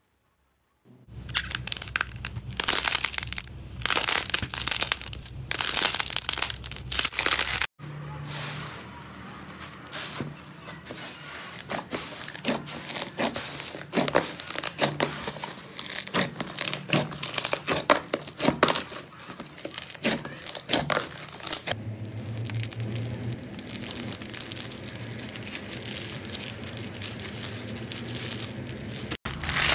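Slime being squeezed, stretched and pulled apart by hand, giving dense crisp crackling and crunching. In the first few seconds it comes in four loud bursts. Near the end a clear slime packed with beads crunches as it is squeezed.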